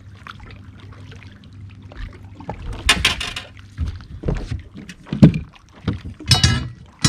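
Knocks and bumps of a freshly caught bass being handled in a bass boat, the sharpest about five seconds in, over a steady low hum for the first couple of seconds. Short grunt-like sounds come in around the middle and near the end.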